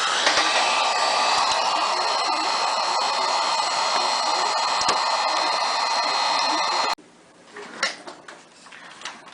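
Hot-air heat gun blowing steadily while warming a phone screen to soften the adhesive under the touchscreen digitizer. It cuts off abruptly about seven seconds in, followed by a few faint knocks.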